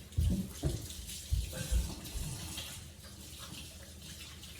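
Kitchen tap running into a sink while hands are washed, a steady rush of water. A few dull thumps come in the first two seconds.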